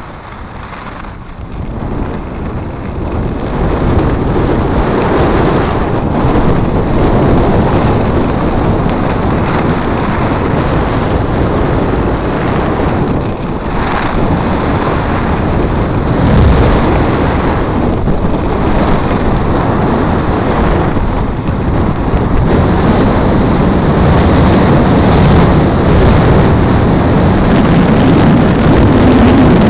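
Wind rushing over the microphone of a skier descending a groomed run, mixed with the hiss of skis carving on snow; it builds over the first few seconds as speed picks up, then holds steady.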